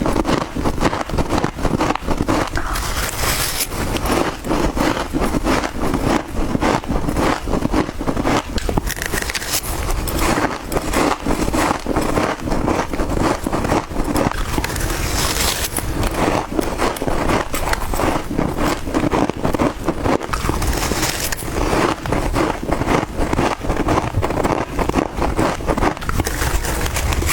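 Close-up crunching and chewing of soft freezer frost, a dense crackle throughout with a brighter, sharper bite every several seconds.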